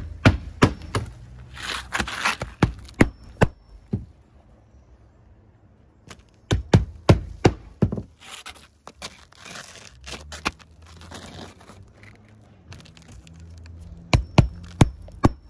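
Roofing nails being hammered by hand into asphalt ridge cap shingles: three runs of quick, sharp hammer blows, with the gritty rustle and scrape of shingles being laid on the ridge between them.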